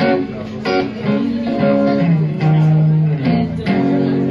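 A guitar strumming chords in a steady rhythm, a strum a little under once a second, with the notes ringing between strums.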